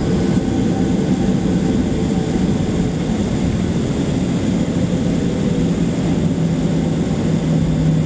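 Boeing 737-800's CFM56 jet engines heard inside the passenger cabin: a steady low drone with a humming tone whose pitch sinks slightly about halfway, while the airliner rolls slowly on the ground.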